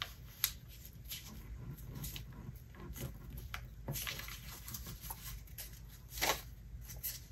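Paper being folded and creased by hand: faint rustles and light scrapes as fingers press and slide along the sheet, with a louder rustle about six seconds in.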